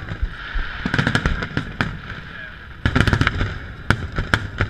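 Aerial firework shells bursting overhead: quick volleys of bangs and crackles about one second and three seconds in, then single sharp bangs near the end.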